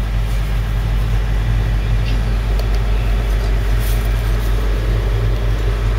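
A John Deere excavator's diesel engine running steadily, a low even drone with no change in speed.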